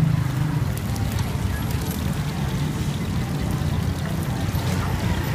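A steady low rumble, like a running motor, with a few faint clicks over it.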